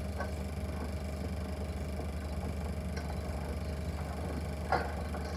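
Super 8 sound film projector running: a steady low hum with a faint whine, and a few faint clicks, the loudest near the end.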